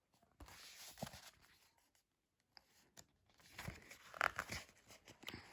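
Faint rustling of a picture book's paper pages being handled and turned, in two spells.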